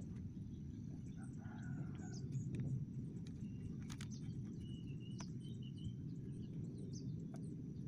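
Outdoor ambience: a steady low rumble with small birds chirping throughout. A rooster crows faintly about one and a half seconds in, and there are a few light clicks.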